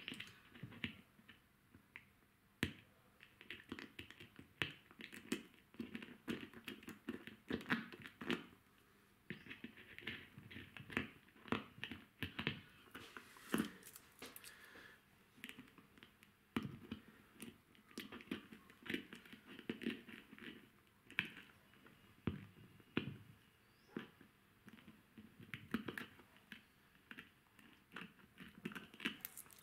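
A knife cutting and trimming excess double-sided tape: irregular, quiet scratchy strokes and small clicks of the blade.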